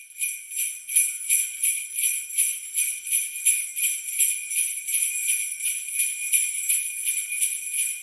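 Sleigh bells shaken in a steady rhythm, about three shakes a second.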